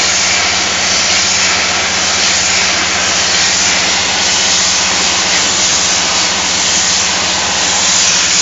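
Aerosol-can line machinery (rotary star-wheel feeder and slat-chain conveyor) running, heard as a loud, steady hiss over an even low hum.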